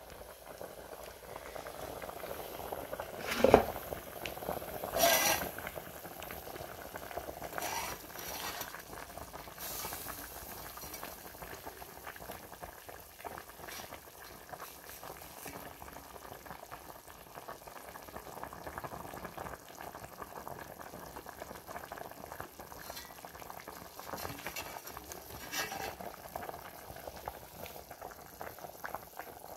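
A large aluminium pot of pumpkin leaves and smoked beef in plenty of water boiling with a steady bubbling. Two louder knocks sound about three and a half and five seconds in.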